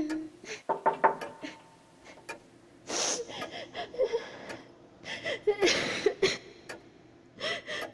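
A young woman sobbing: gasping breaths broken by whimpering, wavering cries.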